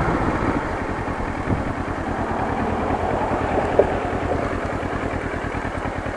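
Motorcycle engine running steadily with an even pulsing beat.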